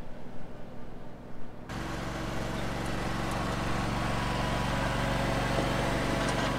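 John Deere X730 lawn tractor's engine running steadily close by as it drives across grass. For the first second and a half only faint outdoor background is heard, with the mower far off.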